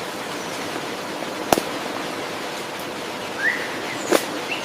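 Steady, even hiss of a natural ambience bed, with two sharp clicks, one about a second and a half in and one near the end, and a short rising chirp a little before the second click.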